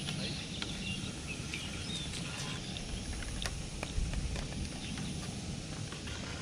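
Floorball stick blade tapping a plastic floorball while dribbling on a concrete court: light, irregular sharp clicks about once or twice a second, over a low, steady outdoor rumble.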